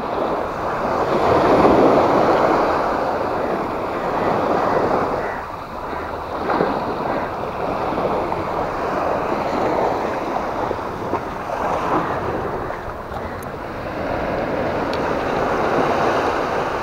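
Small sea waves breaking and washing up a sandy shore, the wash swelling and easing every few seconds.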